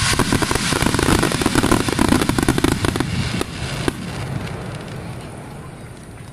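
Fireworks display: a rapid, dense volley of shell bursts and crackling for about three seconds, then a few last bangs before the sound thins out and dies away.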